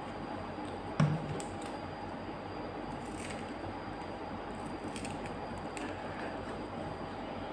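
Wooden craft sticks and a pair of scissors being handled on a cloth-covered table, with one sharp knock about a second in and a few lighter clicks after it, over a steady background hum.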